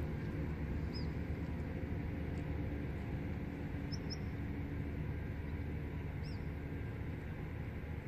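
A steady low rumble, with four short, high bird chirps through it: one about a second in, two quick ones around four seconds in, and one past six seconds.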